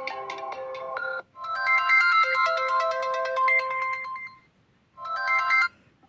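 Stock ringtones of a Sony Xperia XA smartphone, played one after another. One melody of pitched electronic notes ends about a second in, a second melody plays for about three seconds, and a short burst of notes comes near the end, with brief gaps between them.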